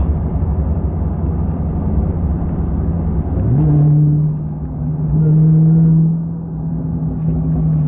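Dodge Charger SRT Hellcat Redeye's supercharged V8 and road noise rumbling inside the cabin while driving. About three and a half seconds in, a deep steady drone steps up in pitch and holds, swelling louder twice.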